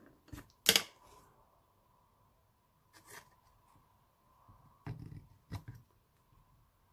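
Scissors snipping thin black cardstock: a few separate snips, the sharpest about a second in, with the card handled between cuts.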